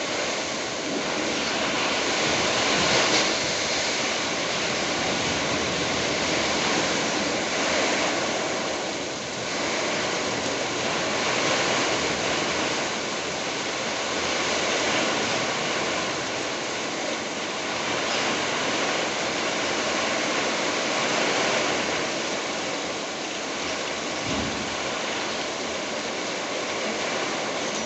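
Heavy downpour driven by strong wind: a dense, steady rush of rain that swells and eases every few seconds.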